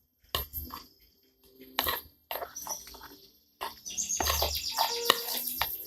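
Sticky slime mixture of powder and activator being stirred and worked, making quick wet clicks and squelches. The clicks come sparsely at first and grow dense and busy in the second half.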